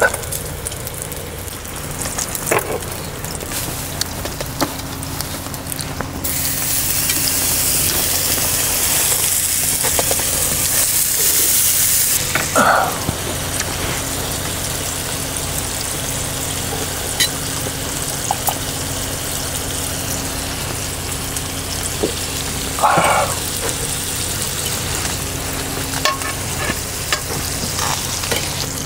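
Pork belly sizzling as it grills over a portable gas burner, a steady frying hiss with a few light clicks. The sizzle gets louder and brighter for several seconds from about six seconds in.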